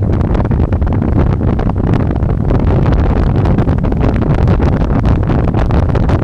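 Heavy wind buffeting the microphone while riding an electric bike at speed, a steady low rumble with no break.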